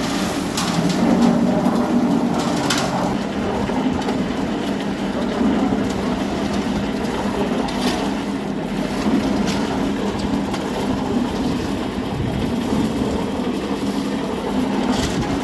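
JZC 350 drum concrete mixer running: a steady machine hum under a continuous gritty rattling churn, with a few sharp knocks scattered through.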